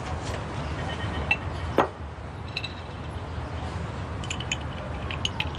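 Cutlery and dishes clinking at a table: a few light clinks, then a quicker run of small clinks near the end, over a steady low background hum.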